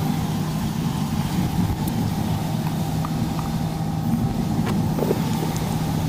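Car driving, heard from inside the cabin: a steady engine hum with road noise.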